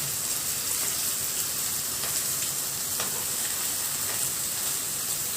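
Minced-meat kofta sizzling steadily as it fries in butter and a little oil in a deep pan, while it is gently turned to brown on all sides.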